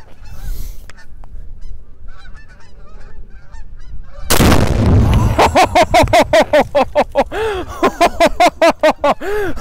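A rifle shot sets off two pounds of Tannerite binary explosive packed inside an old printer: one sudden, very loud blast about four seconds in, with a low rumble for about a second. Geese honk faintly before it and then honk loudly over and over.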